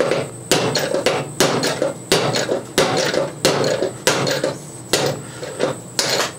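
Hammer blows on a riding-mower deck's blade spindle, driving out the rusted lower bearing: a steady run of about ten sharp metallic strikes, one every two-thirds of a second or so, each with a short ring.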